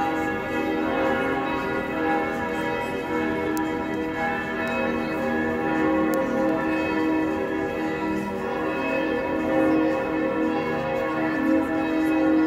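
Several bells ringing together in a continuous peal, many pitches overlapping. The sound starts abruptly.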